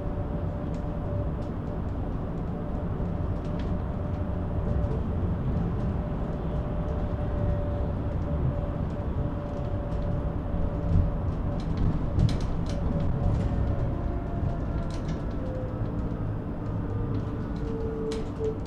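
Cabin sound of an Ebusco battery-electric city bus on the move: steady road and tyre rumble with the electric drive's whine. The whine slides down in pitch over the last few seconds as the bus slows into a roundabout, and light clicks and rattles come from the interior throughout.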